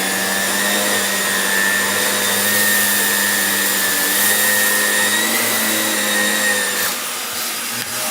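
Shark Lift-Away upright vacuum running steadily on carpet as it sucks up oatmeal, a motor whir with a steady high whine. About seven seconds in, the whine drops out and the sound eases a little.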